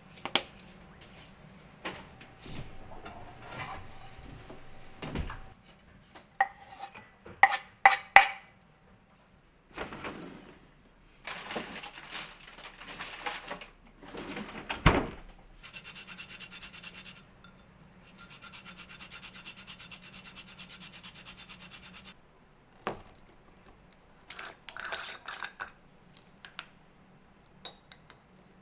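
Objects of wood and metal being handled: rubbing, scattered knocks and clinks, and a steady hiss lasting several seconds about halfway through.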